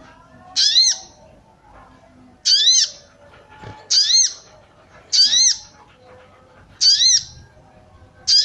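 Female sogon (sogok ontong) bird giving a short, high 'cuit cuit' call six times, about every one and a half seconds, each call a quick rising-then-falling note: a female's calling, used to stir males into song.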